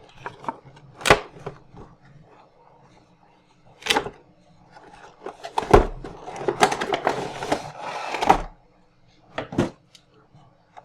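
Packaging being handled while a box is opened: several sharp clicks and knocks, with rustling and scraping in the middle stretch.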